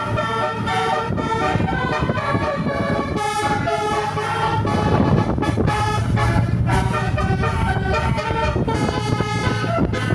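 Tour bus 'telolet' multi-tone horn playing a rapid tune of short notes that step between pitches, with the bus's engine running underneath.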